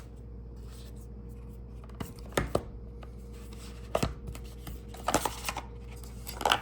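Cardboard product packaging being handled: a few short light knocks and rustles spread over several seconds, over a steady low hum.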